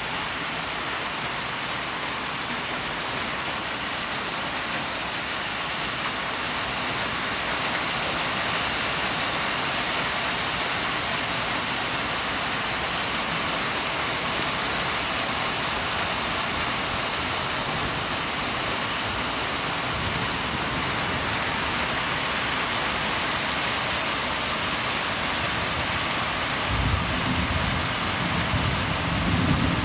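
Heavy rain falling steadily, a continuous even hiss of drops on the ground and foliage. Near the end a low rumble swells in for a few seconds under the rain.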